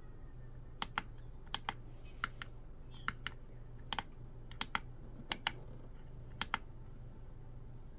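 Small tactile push buttons on a Flier ESC program box clicking as they are pressed and released. Each press gives a quick double click, about eight presses over some six seconds, over a low steady hum.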